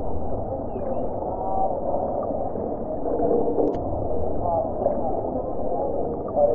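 Muffled crowd chatter, many voices talking over one another with no words standing out, over a low steady rumble. The sound is dull, with no high end.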